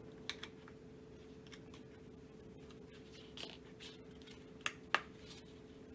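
Polymer grip covers being pressed onto a Magpul Hunter rifle stock: faint scraping and tapping of plastic parts, then two sharp clicks in quick succession near the end. A steady faint hum runs underneath.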